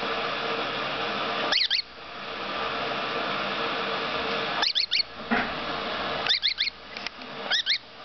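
Grass parrot chicks squeaking in short bursts of about three quick high chirps, four times, over a steady hiss.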